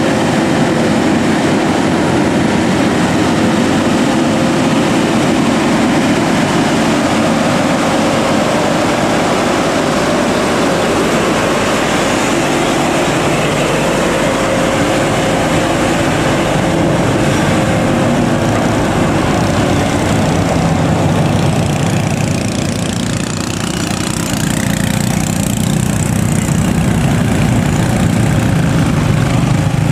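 Scania truck's diesel engine running steadily under load on a steep climb, with a steady whine over the engine noise. It eases a little about 23 seconds in, then builds again.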